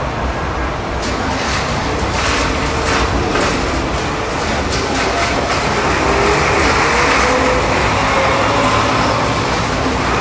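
Loud, steady rumble and clatter of a busy wholesale food market's loading area, with scattered clicks and a thin, slowly rising whine around the middle.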